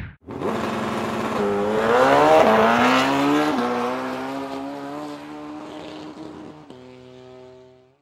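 Racing motorcycle engine accelerating hard, its pitch climbing to the loudest point about two to three seconds in. It drops suddenly, runs on steadier and quieter, and fades out near the end.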